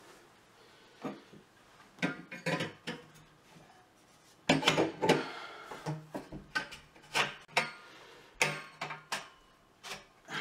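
Copper pipe and fittings knocking and scraping against each other and the wooden tabletop as the assembly is handled, in short clicks and rubs, sparse at first and busier from about halfway.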